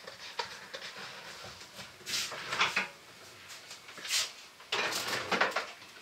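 A few faint scrapes and rustles of objects being handled at a kitchen counter: a short run about two seconds in, a single one near four seconds, and another run about five seconds in.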